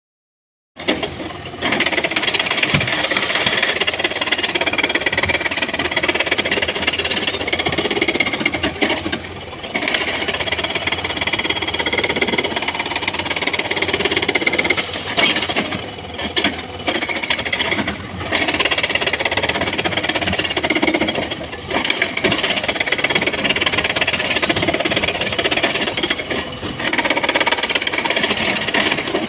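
Excavator working as it loads rock into a dump truck: a diesel engine running under load with a dense clatter and rattle of stone and steel. It starts suddenly about a second in, with a few short dips.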